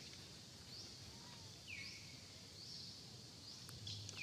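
Quiet forest ambience: short high chirping calls repeat about once a second, with a lower call that falls in pitch every few seconds.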